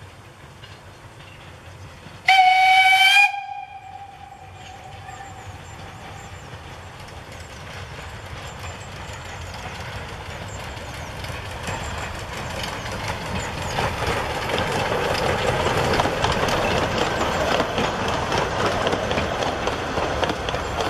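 Narrow-gauge steam locomotive's whistle, one loud blast of about a second, then the train running towards the listener, its rumble and clatter growing steadily louder as it draws near and passes.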